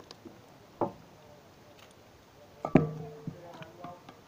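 Metal cookware knocked while being handled: a sharp knock about a second in, then a louder metallic clang that rings briefly, followed by a few lighter clinks.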